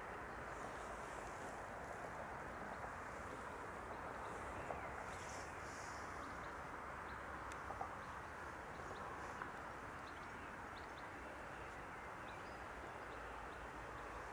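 Outdoor ambience: a steady low hiss with faint, scattered bird calls.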